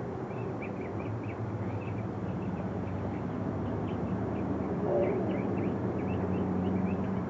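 Small birds chirping over and over, with a steady low engine drone underneath.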